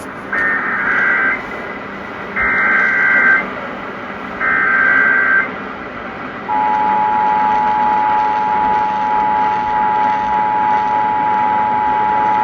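Emergency Alert System tones over AM radio with background static: three one-second bursts of the warbling SAME digital header, a second apart, then about six and a half seconds in the steady two-tone EAS attention signal. The header announces a Child Abduction Emergency (Amber Alert).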